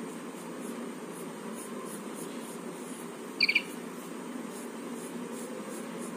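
Steady low background hum, with a brief high-pitched triple chirp about three and a half seconds in.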